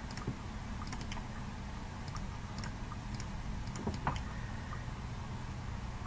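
Computer mouse clicking: scattered light, sharp clicks a few times a second over a steady low hum.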